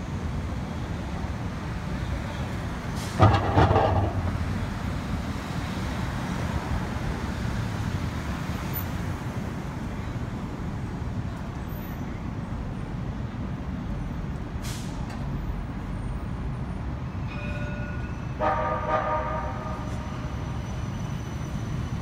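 Electric streetcars and city traffic giving a steady low rumble as a tram passes close. A sudden loud burst of noise comes about three seconds in, and a brief pitched tone with several notes sounds near the end.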